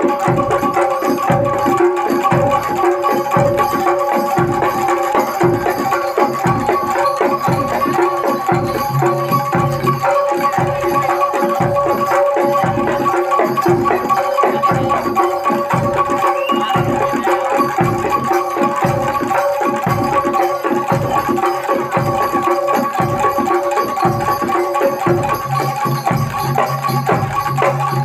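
Live jaranan gamelan music: drums beating a steady, driving rhythm of about two strokes a second under held ringing tones.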